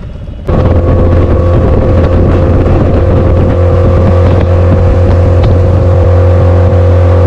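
Small boat's outboard motor running steadily with the boat under way: a low hum with a steady whine above it, cutting in abruptly about half a second in.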